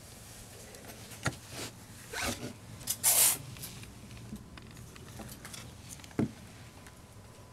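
Handling noises as a bisque doll head is turned over in the hand: a few sharp knocks, and a brief rasping rustle about three seconds in that is the loudest sound.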